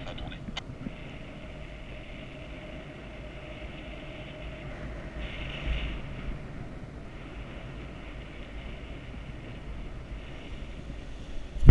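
Wind rushing over the microphone of a paraglider pilot's camera during a low landing approach, steady with a brief swell about halfway through.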